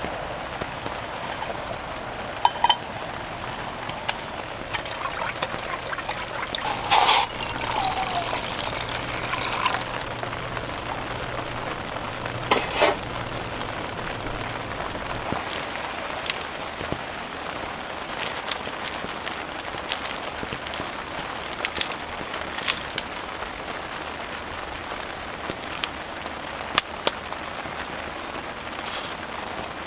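Steady hiss of a cassette-gas camping stove burner heating a metal pot of water, with a few sharp metal clinks from the cookware.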